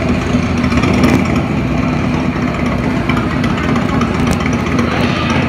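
Motorbike engine running steadily, a continuous rumble with a low hum.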